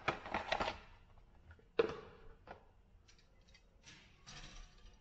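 Plastic sprue frames of a model kit being handled as they are lifted from a cardboard box and laid on a table: rustling and clattering plastic, with one sharp click about two seconds in and a light scrape near the end.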